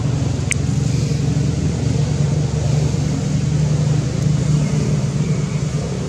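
Steady low engine drone, unchanging throughout, with a single short click about half a second in.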